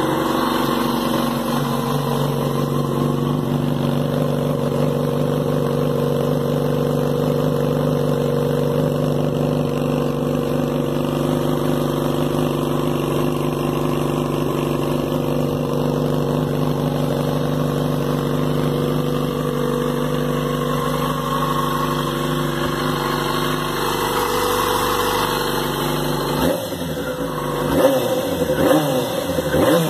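Yamaha FZ6's 600 cc inline-four idling steadily just after starting. Near the end the throttle is blipped a few times, the engine note rising and falling.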